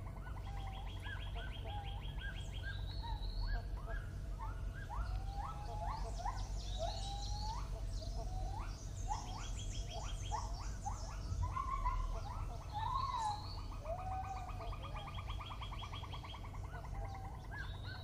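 Tropical rainforest chorus: many birds calling together with short rising and falling whistled notes and fast trills.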